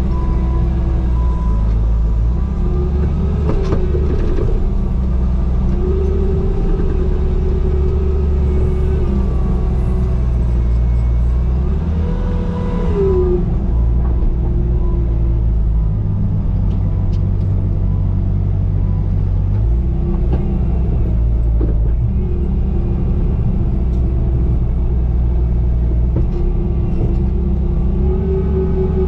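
Bobcat T595 compact track loader's diesel engine running steadily under working load while grading sand, with a whine that shifts up and down in pitch now and then, most clearly about halfway through.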